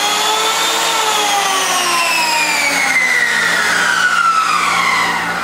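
Skil 100 electric hand planer's motor whining, reaching top speed about a second in, then falling steadily in pitch as the cutter head spins down.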